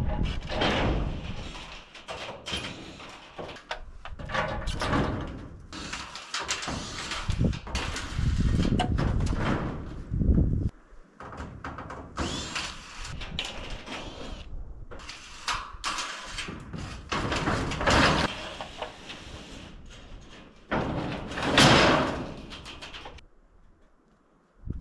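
Corrugated sheet-metal roofing being pulled loose and slid down a roof, scraping and clattering in repeated bursts, several of which start or stop abruptly.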